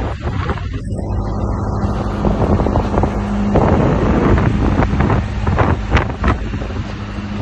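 Gusty wind buffeting a phone microphone in a rainstorm, a loud, uneven rumble that rises and falls with the gusts. A steady hum runs under it from about a second in until about three and a half seconds in.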